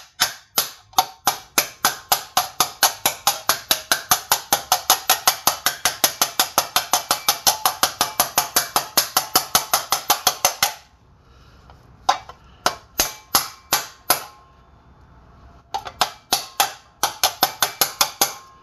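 Rapid, even hammer blows on a flat piece laid over a new front wheel seal, driving the seal into the hub of a 1998 Toyota Tacoma 2WD until it sits flush, about four or five blows a second. The blows stop for a few seconds partway through, resume with a few single strikes, and then run rapidly again.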